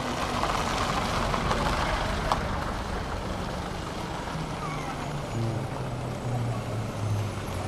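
A motor vehicle's engine running, with a rushing hiss over it for the first few seconds; the engine's low hum shifts in pitch about halfway through.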